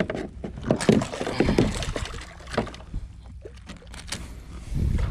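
Irregular knocks, rattles and rustling on a fishing kayak as a freshly caught trout and the lure's hooks are handled.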